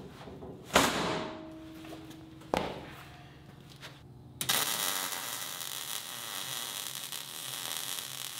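Two sharp metallic clanks as the steel sheet is set on the door frame on the steel welding table, each ringing briefly. From about four and a half seconds in, a MIG welding arc crackles and hisses steadily as the sheet is welded to the tailgate door frame.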